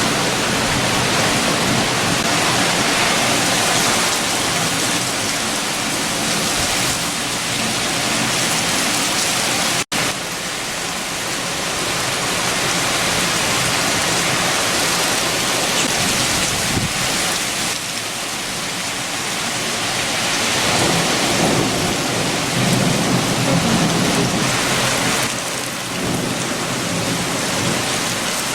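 Heavy rain with strong wind, a steady rushing that swells and eases. It cuts out for an instant about ten seconds in.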